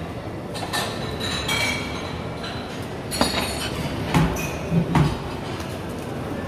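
Crockery and cutlery clinking over the steady hum of a busy buffet kitchen, with several ringing clinks, then a few dull knocks about four to five seconds in.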